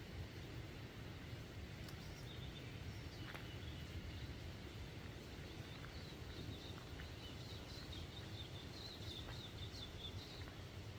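Small birds chirping in native bush, with a quick run of chirps near the end, over a steady low rumble and a few faint clicks.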